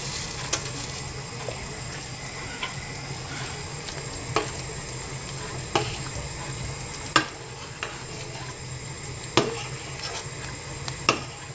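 A metal spoon stirs noodle soup in a stainless steel pot, clinking sharply against the pot every second or two. Under it the hot broth gives a steady hiss.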